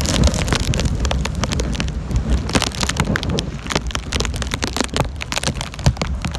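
Tropical-storm wind gusting hard against the microphone, a heavy low rumble, with many sharp spatters that fit rain hitting close by.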